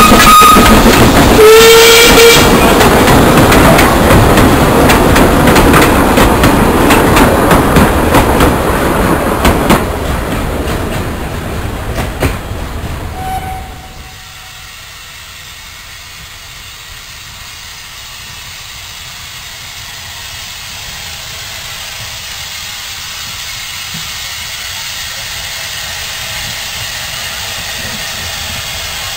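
Narrow-gauge steam locomotive whistling, a high whistle ending just at the start and then a short, lower whistle about two seconds in, as the train passes with its coaches clattering over the rail joints, the noise fading away. After a sudden drop about halfway, a quieter steady sound slowly grows louder as the train approaches again from far off.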